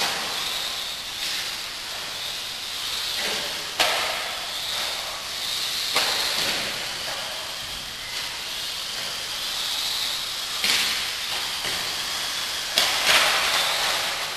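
Several electric radio-controlled off-road buggies running on an indoor dirt track: a steady high motor whine and tyre hiss that swells and fades as the cars pass, with about five sharp knocks.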